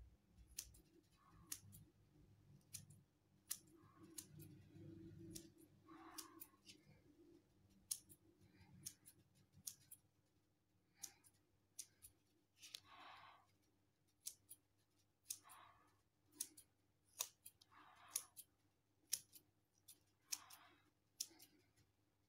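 Small scissors snipping into a piece of foam to trim it round. Each snip gives a sharp click as the blades close, and some give a short, soft rasp as they cut through the foam, roughly one snip every second.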